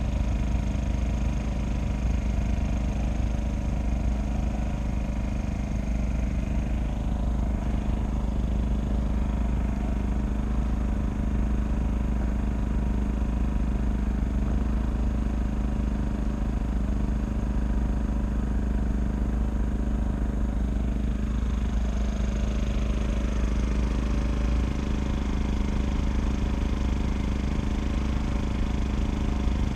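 Boat engine running at a steady speed under way, a constant low drone.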